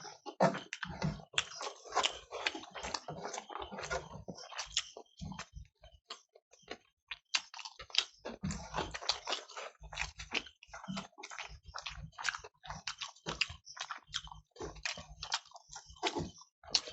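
People chewing and biting mouthfuls of rice and curry: a dense, irregular run of short wet clicks and smacks.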